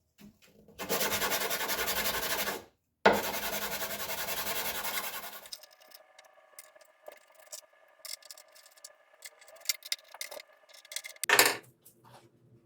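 Sandpaper sanding G-10 fibreglass latch parts: two steady scratchy spells of about two seconds each with a short break between them, followed by fainter clicks and handling and one brief louder noise near the end.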